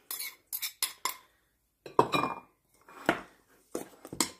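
A ceramic bowl knocks and clinks against a stainless steel mixing bowl as it is tipped and tapped empty. There are several light clinks in the first second, then a few sharper knocks, one leaving a brief metallic ring.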